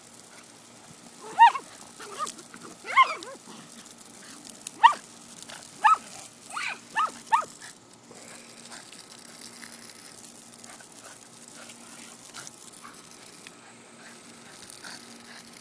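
Cocker spaniel giving a string of about seven sharp, high-pitched yips and barks in the first half while leaping at water drops, over the light hiss of a lawn sprinkler's spray.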